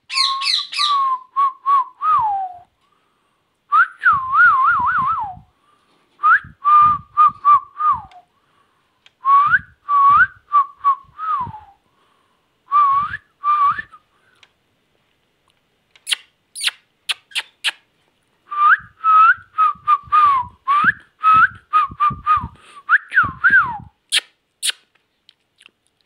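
Indian ringneck parakeet whistling in short warbling phrases, each a run of quick rising-and-falling notes that ends in a downward slide, with gaps between phrases. A few shrill high notes come about two-thirds of the way through and again near the end.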